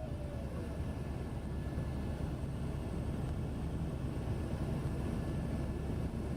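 Helicopter rotor and engine noise heard from inside the cabin in flight: a steady low drone.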